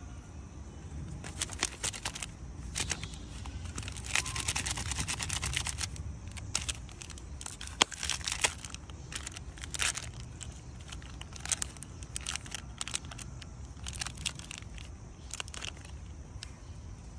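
Plastic snack wrapper crinkling and tearing as a macaque bites and pulls it open: a run of irregular crackles and rustles, densest from about four to six seconds in.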